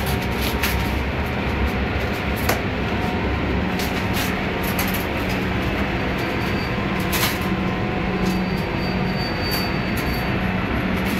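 Steady machinery noise of a commercial kitchen: an even rushing of fans with a low hum underneath, and a few light knocks.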